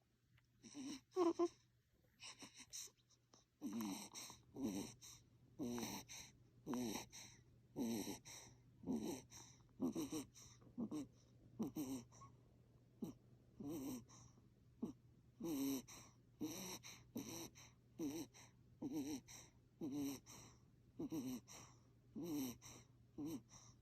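Infant snoring: short noisy breaths about once a second, each with a faint pitched rasp under a breathy hiss. A few irregular breaths come first before the rhythm settles.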